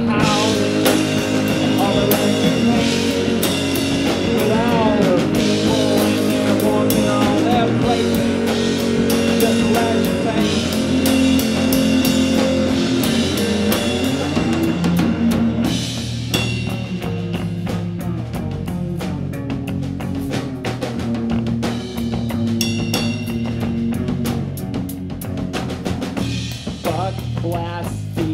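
Live rock band playing an instrumental passage: drum kit with cymbals, electric guitar and bass guitar. The playing gets quieter and sparser a little past halfway.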